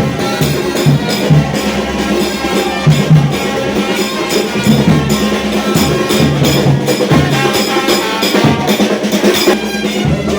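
Background music with a percussion beat and a bass line.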